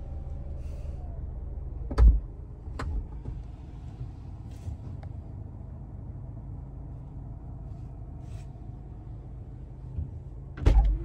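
Steady low hum of an idling Mazda, heard from inside the cabin. A loud thump comes about two seconds in, and near the end a cluster of knocks and a thump as the driver's door is opened.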